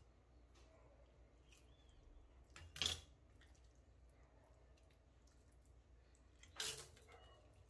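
Hands handling a deboned raw chicken on a plastic cutting board, near-silent except for two brief soft handling noises, one about three seconds in and a quieter one near the end.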